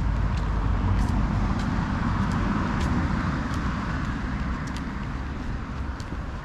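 A car passing by: its road noise swells over the first couple of seconds, then fades slowly. Footsteps on a tarmac path tick about every two-thirds of a second.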